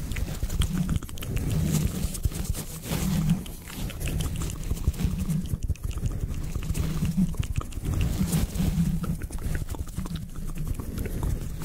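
A sponge rubbed and scratched against a microphone's metal mesh grille, very close to the microphone: crackly scraping with dense small clicks over a low rumbling handling noise that swells in strokes about once a second.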